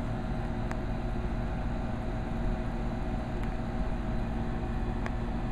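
Steady low mechanical hum and rumble with a faint steady tone in it, unchanging throughout; two faint clicks, one under a second in and one near the end.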